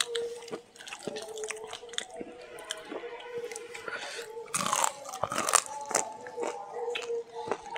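Close-up chewing and crunching of crispy fried chicken pakoda, with a run of crisp bites loudest a little past halfway.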